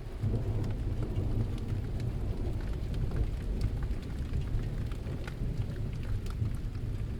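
Steady rain falling with scattered drop ticks over a continuous low rumble of thunder.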